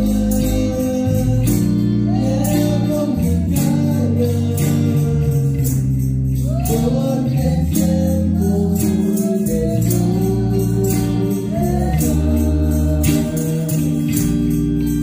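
A live worship band plays a gospel hymn: amplified electric guitars and bass over a steady percussion beat, with a voice singing the melody.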